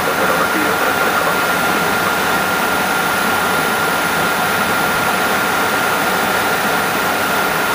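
Steady flight-deck noise of a McDonnell Douglas MD-80 in flight: an even rushing hiss with a thin, steady high whine running through it.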